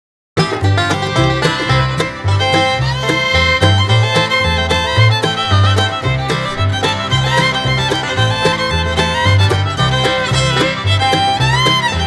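Background music in a bluegrass style, led by fiddle over a steady bass line, starting abruptly after a brief moment of silence.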